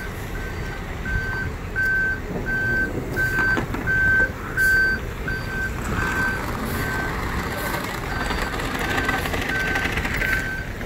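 Backup alarm of a large sheriff's emergency truck beeping steadily, about two beeps a second, as the truck reverses, over a low rumble.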